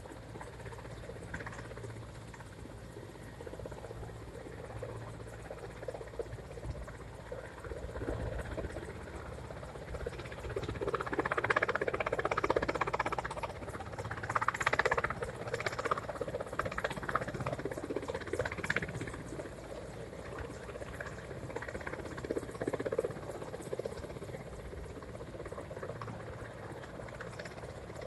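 Helicopter hovering at a distance, its rotor blades chopping steadily; the sound swells louder for several seconds in the middle.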